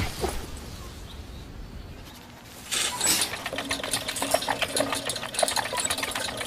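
Rapid, even clicking of a small mechanism starts suddenly about three seconds in, over a low steady hum, and keeps going.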